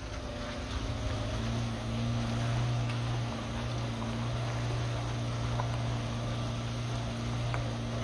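1991 Suzuki Sidekick's 1.6-litre eight-valve four-cylinder engine running with a steady low hum as it rolls slowly along, with tyre noise from the rocky dirt track.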